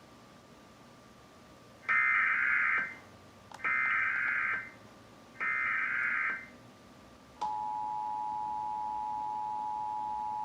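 Emergency Alert System header: three screeching bursts of digital data, each about a second long and about a second apart. About seven seconds in, the steady two-tone EAS attention signal starts and holds.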